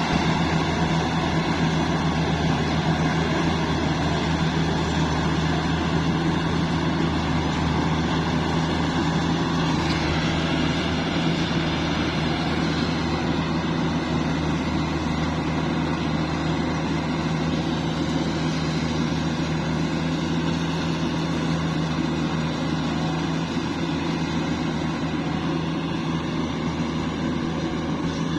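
Rice combine harvester's diesel engine running steadily at high throttle, with a slight change in tone about ten seconds in.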